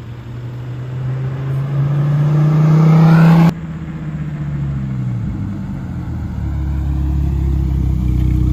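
Dodge Viper V10 engine accelerating, its note rising for about three and a half seconds before cutting off suddenly, then running on as a steady lower drone that grows a little louder near the end.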